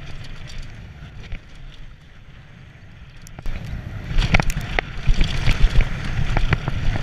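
Mountain bike riding fast down a dirt trail, heard from an on-board camera: from about three and a half seconds in, a rough rumble of tyres and wind on the microphone, with sharp clicks and rattles as the bike goes over bumps. Before that, only a quieter steady low rumble.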